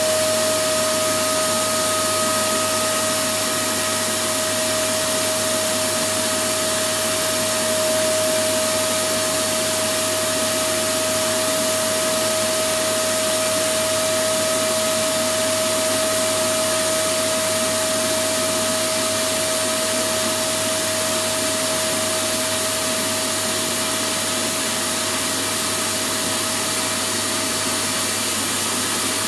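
Vacuum cleaner running steadily: a continuous rush of air and motor with one steady whining tone that does not change.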